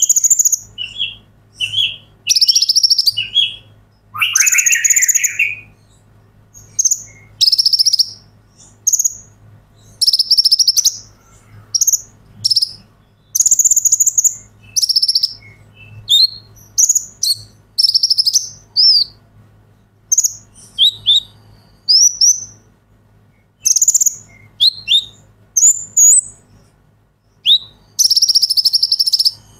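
Male Van Hasselt's sunbird (purple-throated sunbird) singing: a fast series of short, very high-pitched buzzy trills and sharp chirps, about one a second, with one lower rising call about four seconds in.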